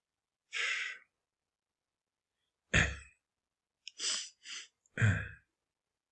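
A man sighing and breathing out close to the microphone: one breathy exhale about half a second in, then several short puffs of breath in the second half.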